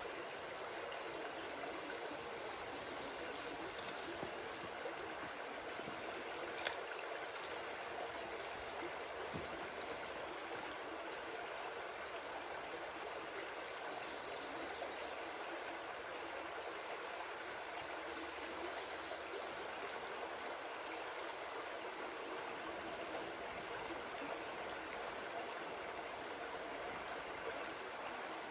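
Shallow rocky creek running: a steady, even rush of flowing water.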